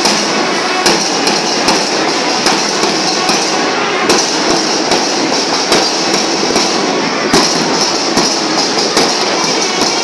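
School marching band's drum section playing a steady marching beat: continuous rattling snare drums, with a deep bass-drum stroke about every 0.8 seconds.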